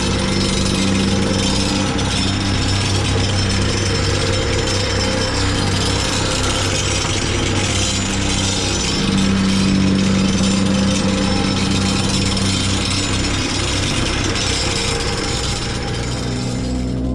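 Construction machinery running loudly: a steady engine drone under a rapid, jackhammer-like mechanical rattling and pounding that cuts off abruptly at the end.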